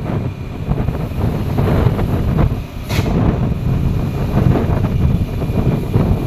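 Rumble of heavy traffic passing close by, most likely a bus's engine and tyres, with wind buffeting the microphone. There is a brief sharp hiss about three seconds in.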